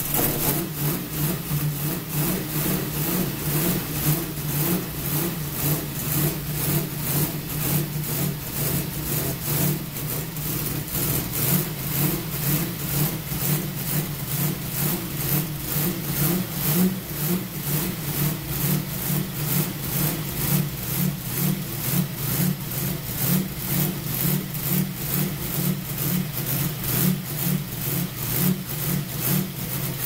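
1965 TVR Griffith racecar's Ford V8 running at a steady idle just after starting, heard close to its open carburettor intake, with a regular pulsing beat.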